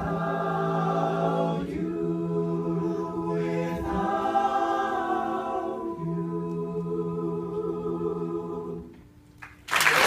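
Male a cappella group singing the final chords of a song: a few long, held chords, the last one cutting off about nine seconds in. Audience applause breaks out right at the end.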